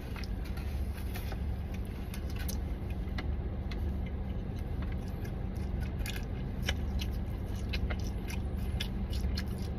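Steady low hum of a car's cabin, with faint scattered clicks and crackles of someone chewing a burger and handling its paper wrapper.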